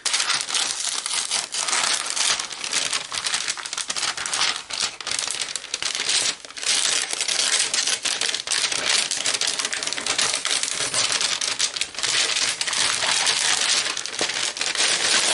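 Thin white wrapping paper rustling and crinkling as a parcel is unfolded and pulled open by hand, with a short lull about six seconds in.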